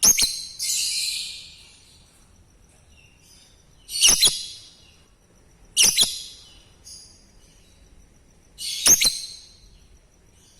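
Lovebird giving short, shrill, screechy calls, about five in all, spaced one to three seconds apart. A faint steady high pulsing tone runs underneath between the calls.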